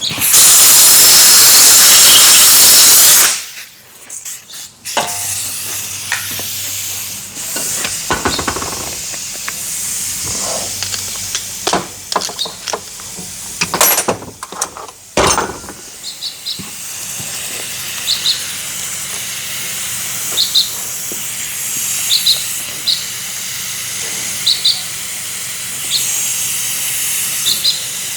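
A loud pressurised hiss of air or spray for about three seconds, cleaning out the slewing cylinder gland's screw holes, then a quieter steady hiss with scattered tool clicks and knocks.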